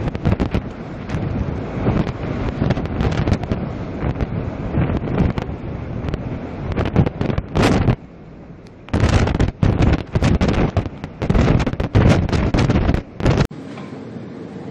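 Storm wind buffeting the microphone in heavy, irregular gusts over a steady rush of wind and sea. Near the end it drops abruptly to a quieter, steady rush.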